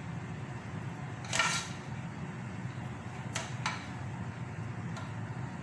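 A serving spoon scraping and pushing rice around in a pot, a few short swishes with the loudest about a second and a half in, over a steady low hum.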